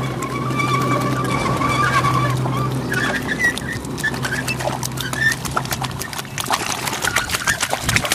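A steady low engine hum fades out about six seconds in, with chirping birdcalls above it. After that comes a quickening run of clicks and sloshing, as the cono weeder's toothed rotors churn through the wet paddy mud between the rice rows.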